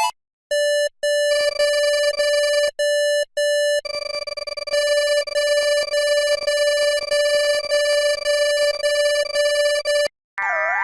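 Electronic emergency alert tone: a single buzzy tone sounding in two short beeps, a held stretch of over a second, two more beeps, then held for about six seconds with a fast flutter. Just before the end it cuts off and a warbling siren starts.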